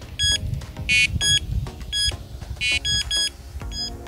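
Prologic C-Series Pro carp bite alarm beeping in a quick run of short electronic beeps as it is triggered by hand, set to its loudest volume.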